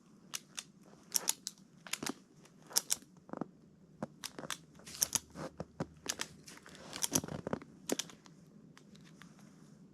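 Irregular sharp crunches and clicks, one to three a second, of someone moving through snow and brush.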